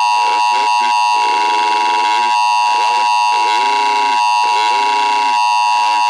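Emergency Alert System attention signal: a steady two-tone alarm just under 1 kHz, sounding without a break. Beneath it, short phrases of a garbled, distorted voice come and go.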